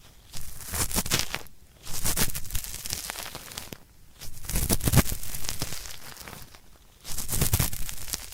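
Cotton swab rubbed hard in the left ear as ASMR ear cleaning, a gritty scraping meant to suggest hard earwax. It comes in four strokes of one to two seconds each, with short pauses between.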